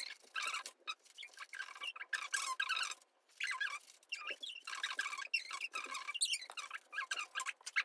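Scissors snipping through thick coloured paper, cutting it into strips: a fast, irregular run of crisp snips with a couple of short pauses.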